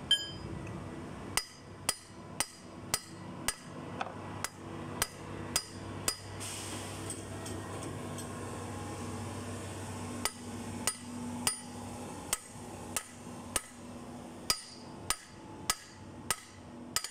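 Steel hammer striking the Cummins QST30 fan pulley's taper-lock hub about twice a second, each blow with a short metallic ring, in two runs with a pause of a few seconds in the middle. The blows are knocking the tapered lock loose to free the pulley.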